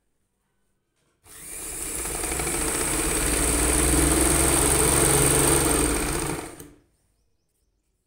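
Small domestic sewing machine stitching a seam through fabric. It starts about a second in, gets louder and faster over a couple of seconds, runs steadily, then stops near the end.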